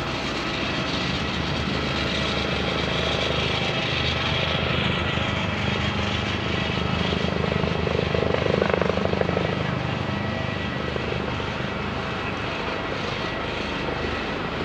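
Helicopter flying overhead, its rotor beating steadily in a fast low chop. It grows loudest about eight to nine seconds in.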